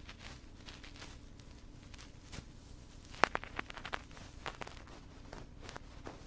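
Close-up ASMR ear-cleaning sounds on a microphone: soft scratching and scattered clicks, with a cluster of sharper clicks about three seconds in, over a faint steady hum.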